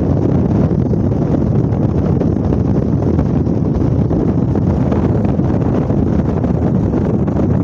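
Wind buffeting the microphone: a steady, loud low rumble with no breaks.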